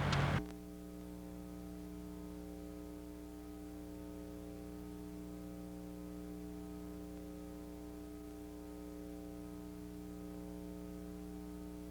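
Outdoor sound cuts off abruptly about half a second in, giving way to a steady electrical hum of several unchanging tones.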